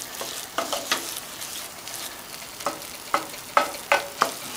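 A spoon stirring and scraping a flour-and-oil roux around an enamelled skillet, one short scrape per stroke, more often in the second half. The roux is just browned and is kept moving constantly so it does not burn.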